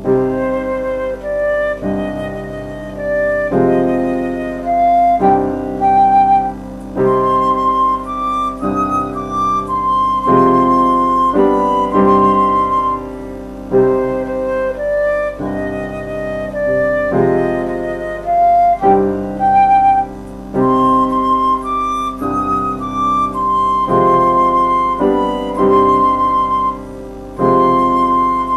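Instrumental background music: a melody over sustained chords that change every second or two.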